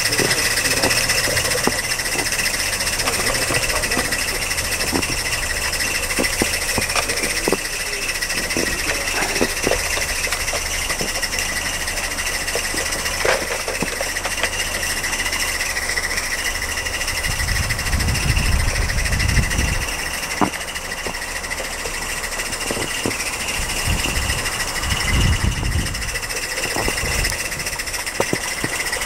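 Mamod live-steam Double Fairlie garden-railway locomotive running: a steady hiss of steam with scattered light clicks from the wheels and track. Two low rumbling bursts come in the second half.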